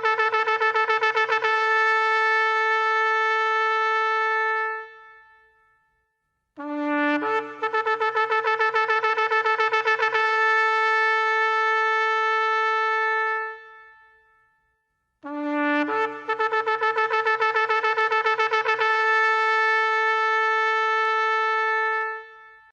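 Shofar (ram's horn) sounded in long blasts, three in a row with short silences between. Each blast opens on a brief lower note, leaps up to a higher held note that pulses rapidly at first, then steadies for several seconds and dies away.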